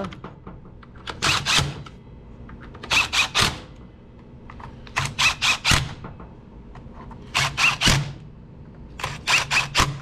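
Screwdriver tightening the saw's housing screws: short sharp clicking bursts, three or four at a time, in clusters about every two seconds.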